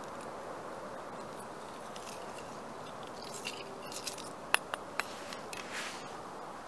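Ice-fishing tackle handled at a hole in the ice: three sharp clicks about halfway through, followed by a brief scrape, over a steady outdoor wind hiss.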